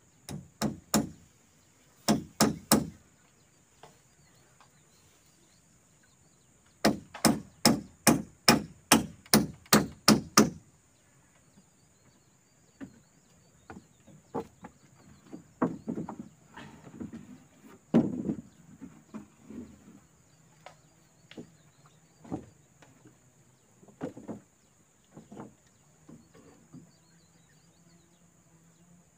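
Wood being chopped with a blade: two short groups of strikes, then a fast run of about ten strikes at roughly three a second, followed by lighter, scattered knocks of wood.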